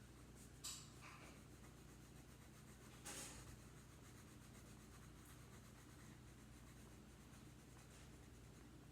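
Faint scratching of a coloured pencil on paper: a few short strokes about a second in and a longer one about three seconds in.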